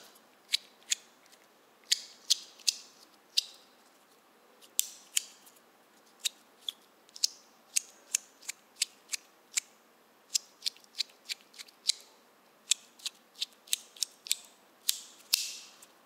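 ACEdc Milk Cap mini stainless steel haptic coin fidget toy being slid and snapped by hand, its magnetic detents giving sharp metallic clicks. The clicks come at uneven intervals, sometimes singly and sometimes in quick runs of several.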